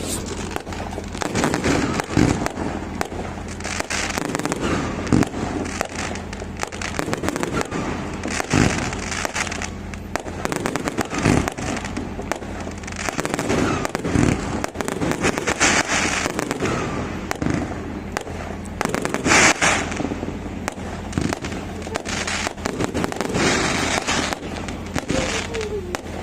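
A continuous barrage of fireworks and firecrackers: dense rapid crackling and popping with heavier booms mixed in, never pausing.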